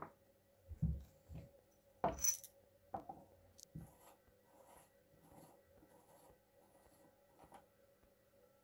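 Small steel parts of an old hand-cranked breast drill being handled on a wooden table: a click and a few knocks and clinks as parts are picked up and set down, then a soft rasping repeated about every half second as a small nut is turned off its threaded shaft by hand.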